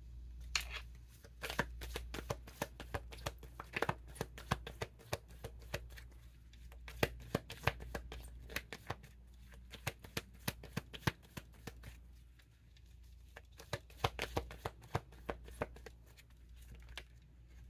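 Tarot cards being shuffled by hand: dense runs of quick papery clicks in several bursts with short lulls between them.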